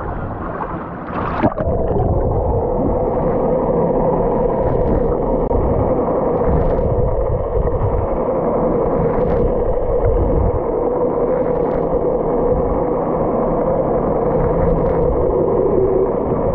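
A handheld camera plunges underwater with a splash about a second and a half in, then records muffled underwater noise: rushing water with a steady hum and low rumble, and a few faint ticks.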